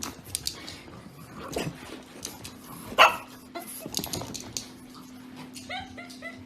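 A dog in a small room: scattered knocks and clicks, one loud sharp bark about three seconds in, and a quick run of four short high yips near the end, over a faint steady hum.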